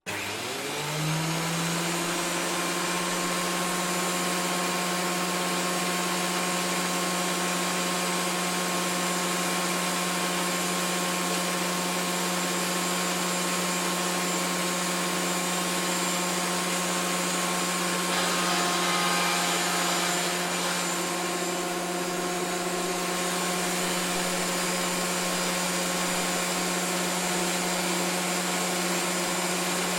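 Electric woodworking planer motor spinning up in the first second, then running at a steady hum with a whirring noise over it. About eighteen seconds in the sound turns louder and rougher for a few seconds before settling back to the steady run.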